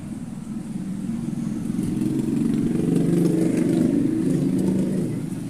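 A motor vehicle's engine passing close by, growing louder to a peak midway and then fading.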